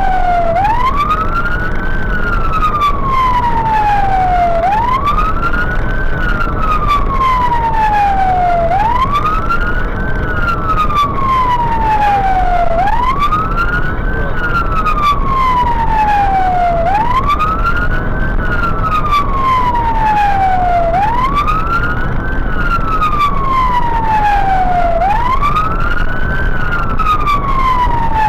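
Fire engine siren on a slow wail, each cycle a quick rise then a long falling glide, repeating about every four seconds, over the truck's engine and road noise.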